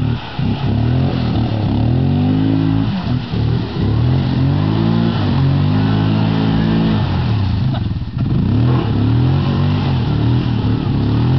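Can-Am Outlander ATV engine revving up and down, its pitch rising and falling about four times.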